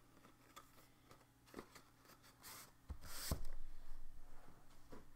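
Handling the empty pen box: a few light taps and a short rustle, then a dull thump with a scrape about three seconds in as the box is shifted on the cloth, and one more small knock near the end.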